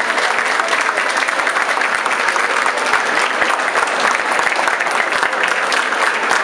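Audience applauding: steady clapping of many hands.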